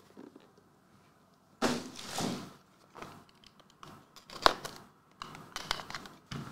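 Small cardboard box of trading cards being handled and opened: a scraping rustle about one and a half seconds in, then scattered small clicks and rustles with one sharp click near the middle.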